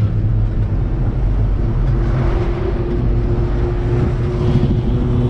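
A bus running along the road, heard from inside by an open window: a steady engine drone with road noise, and a hum that steps down in pitch near the end.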